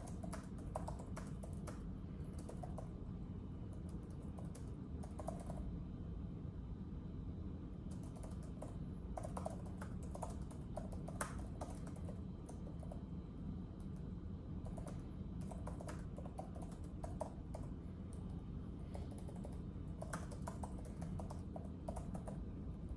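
Typing on a keyboard: quick runs of keystrokes in irregular bursts with short pauses between them, over a steady low background rumble.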